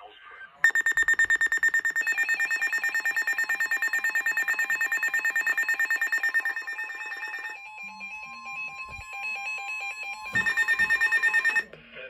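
Two weather alert radios sounding their alarms at once: a rapid electronic beeping, about eight beeps a second, over a warbling tone that steps back and forth between two pitches. Near the middle the beeping stops and the warble carries on over a steady lower tone, then the rapid beeping comes back briefly near the end.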